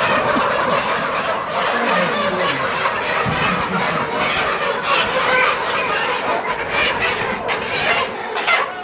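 A crowded flock of chickens calling together in a steady, dense chorus of many overlapping voices. The birds are being cornered and caught by hand for debeaking, which stresses them.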